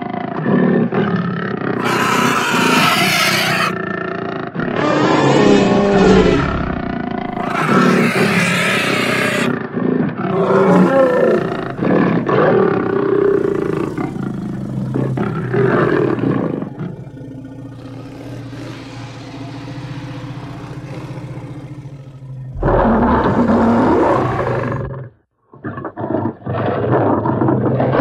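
Sound-effect dinosaur roars and growls, one after another, each lasting a second or two. A quieter low rumbling stretch comes a little past the middle, and there is a brief drop-out near the end.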